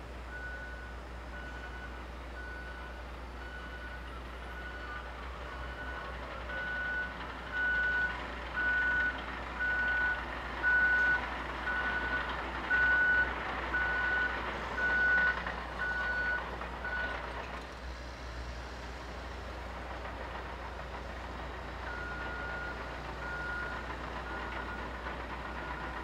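Caterpillar crawler bulldozer's backup alarm beeping about once a second over the steady low running of its diesel engine. The beeps grow loudest midway, stop, and start again near the end.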